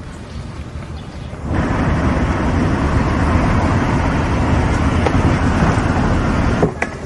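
Steady road and traffic noise of a car being driven, which comes in about a second and a half in and cuts off abruptly near the end, followed by a short click.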